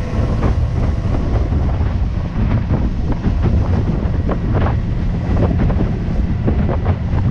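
Strong wind buffeting on the microphone aboard a fast-running panga, with the boat's outboard motor and the rush of water and spray beneath it.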